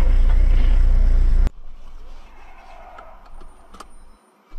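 Loud bass-heavy music that cuts off abruptly about a second and a half in, followed by quieter road noise inside a moving car with a few faint clicks.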